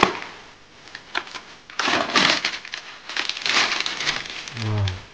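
A clear plastic food tray being pulled open by hand: a sharp snap, then bursts of crinkling and crackling plastic.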